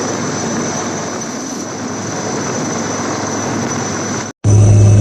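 Steady aircraft engine noise with a thin high whine. It cuts off about four seconds in and is followed by a loud, deep, steady engine hum.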